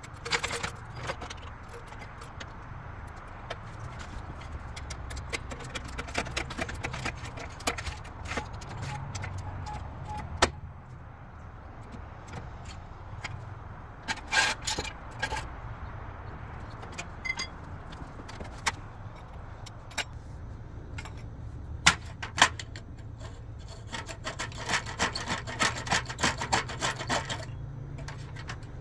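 Metal clicks and clanks from a floor jack being worked under a car and jack stands being set, with a low steady rumble beneath. Near the end comes a quick run of clicks as a socket wrench works on a plastic-capped lug nut.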